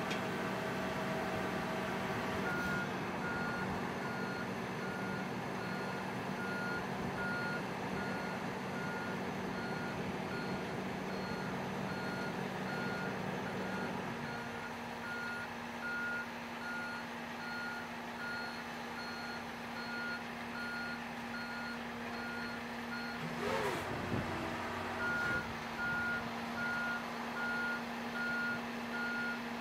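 Johnston RS655 street sweeper running while its rear hopper is lowered. A steady engine and hydraulic drone steps up in pitch about halfway through. Over it a backup alarm beeps about once a second, starting a couple of seconds in, breaking off briefly around a short sharp noise after about 23 seconds, then resuming.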